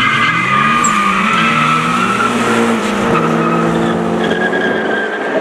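Two Opel Calibra Turbos with 2.0-litre turbocharged four-cylinder C20LET engines accelerating hard from a drag-race launch. The engine notes climb, drop back at gear changes and climb again, over tyre squeal from wheelspin.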